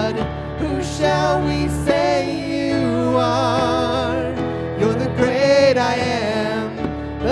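Live worship band music: steady sustained chords with a voice holding wavering, drawn-out notes over them, no words made out.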